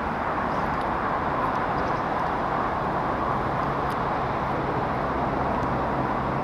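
Steady background noise of distant road traffic, with a low engine hum joining about three seconds in.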